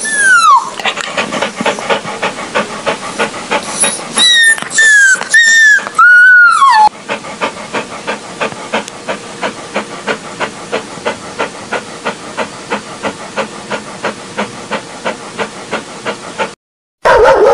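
A dog whining: one high cry falling in pitch at the start, then several short high whimpers over the next few seconds. A steady rhythmic pulsing, about three strokes a second, runs underneath and carries on alone after the cries stop.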